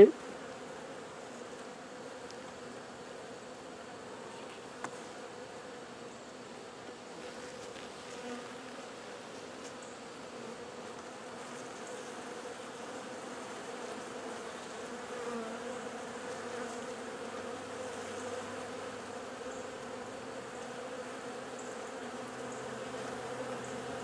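Honey bee colony buzzing in a steady hum over an opened top-bar hive, growing a little louder about halfway through as a comb-covered bar is lifted out. A single faint click comes about five seconds in.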